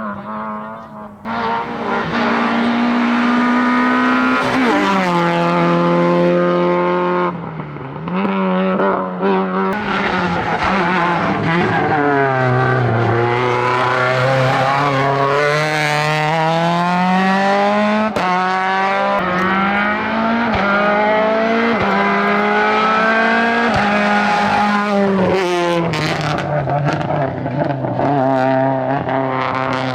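Racing car engine driven hard up a hillclimb course. The engine note climbs and falls again and again as the car accelerates, changes gear and slows for bends, with a dip in loudness about seven seconds in.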